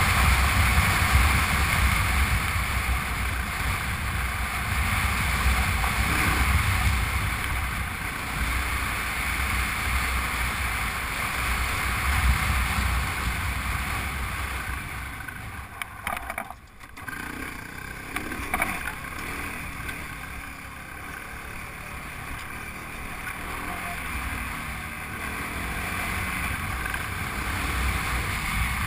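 Wind rushing over an action camera's microphone on a moving Honda Transalp motorcycle, over the low rumble of its V-twin engine. The noise drops briefly a little past the middle, then builds again.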